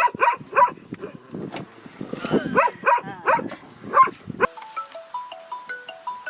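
A pig squealing and grunting in a quick series of short calls, about eight in four seconds. About two-thirds of the way through, it cuts off abruptly and a light mallet-percussion tune begins.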